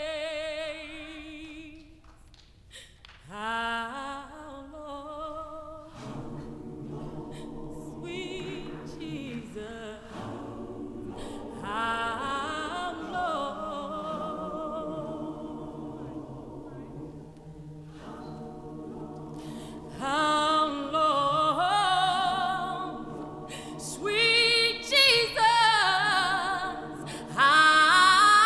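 A cappella gospel singing without clear words: a solo voice with vibrato comes in a few seconds in, and from about six seconds a choir holds sustained chords beneath it. The lead voice grows louder in the last third.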